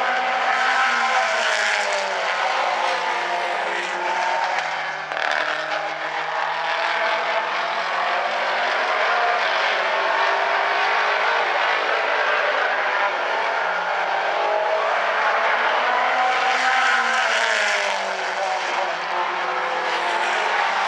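Outlaw Compact race cars running at racing speed: several engines together, their pitch repeatedly falling and rising, loudest with a rising pitch about three-quarters of the way through.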